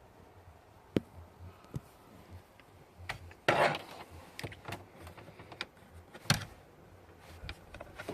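Scattered sharp plastic clicks and knocks as the steering column's top trim and the turn signal multifunction switch are worked loose by hand, with a short scraping rattle about three and a half seconds in and a hard knock a little after six seconds.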